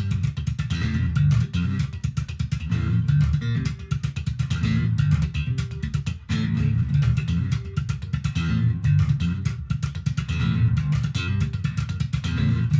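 Squier six-string electric bass played solo: a fast, percussive bass riff of many quick plucked notes, with a short break about six seconds in.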